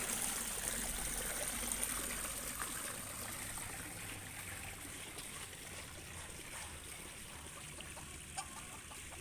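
Running water, like a small stream or trickle, a steady rushing that slowly grows fainter.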